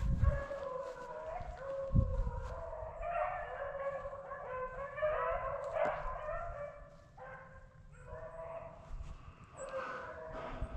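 A pack of rabbit-hunting hounds baying in chorus as they run a freshly jumped rabbit. The voices overlap, drop away briefly past the middle, then pick up again. There is a single low thump about two seconds in.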